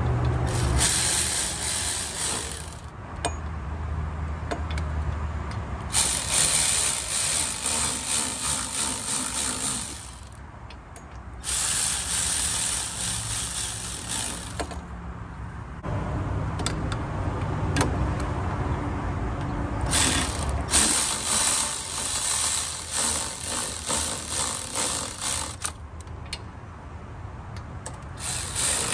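Cordless ratchet running in several bursts of a few seconds each, driving the rear wheel hub's mounting bolts in until they are snug.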